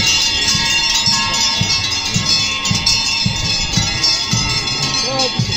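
Many large cowbells on a passing herd of cattle, clanking and ringing all at once in an uneven jangle, their tones overlapping and hanging on.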